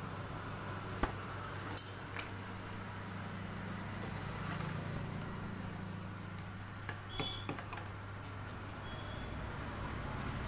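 A steady low hum, with a few light clicks and knocks from PVC pipe pieces being handled, about a second and two seconds in and again near three-quarters through.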